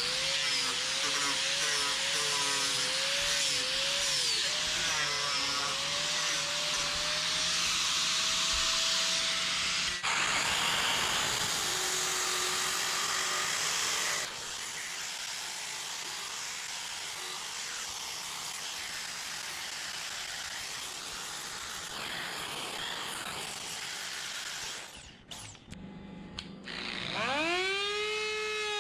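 Electric power tools carving and sanding wood, their motor pitch wavering as they bite in and ease off, in several abruptly changing stretches. Near the end a motor winds up to speed and holds a steady whine.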